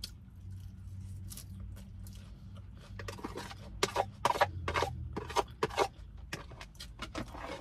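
Eating sounds close to the microphone: a run of short, irregular clicks and scrapes of chewing and utensil handling, busiest in the middle, over a low steady hum.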